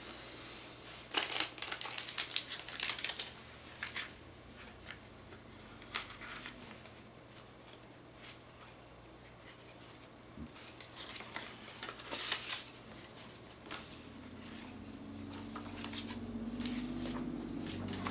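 Paper and cardboard rustling and crinkling in bursts as the iPad's paper documentation envelope is opened and its contents handled. In the last few seconds a low pitched sound rises underneath.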